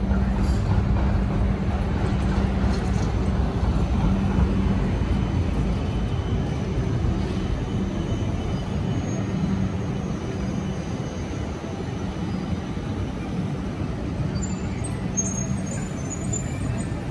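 City street traffic: vehicles running by with a steady low engine hum, plus a few faint high-pitched squeaks near the end.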